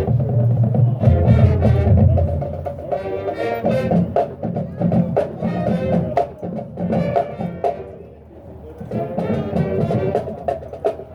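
Marching band playing: brass chords over sharp percussion strikes. The music drops away briefly about eight seconds in, then builds back up.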